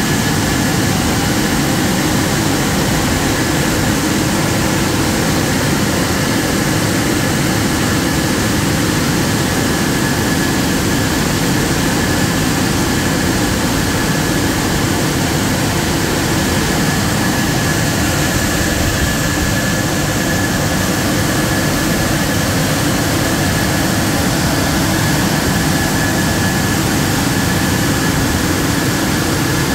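Touchless automatic car wash machine (RoboWash LK101KP) running: a loud, steady rushing noise with a thin, constant whine.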